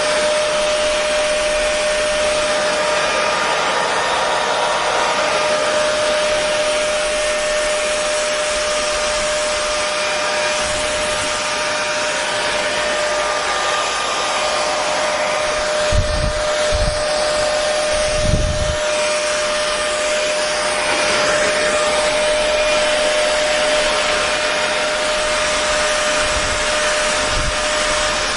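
Hair dryer running steadily: an even rushing whir with a constant hum tone. A few short low thumps come about two-thirds of the way through.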